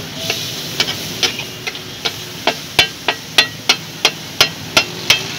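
Metal spatula striking and scraping a hot flat iron tawa as liver is chopped and stirred on it: sharp clacks about three a second, louder from about halfway, over a steady sizzle of frying.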